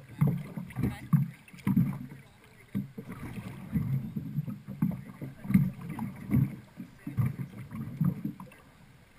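Water sloshing and slapping against a jet ski's hull in shallow water, in irregular bursts about every half second to a second with a few sharp knocks, as the craft is lifted and rocked at the back to rinse sand out of it.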